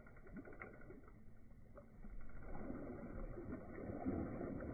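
Muffled splashing of river water as a hooked white sturgeon thrashes and leaps at the surface, louder from about two seconds in.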